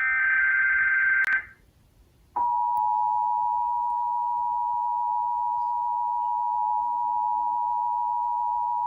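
Emergency Alert System tones from a television: a burst of SAME header data tones lasting about a second, then, after a short pause, the steady two-tone EAS attention signal starting about two seconds in and holding.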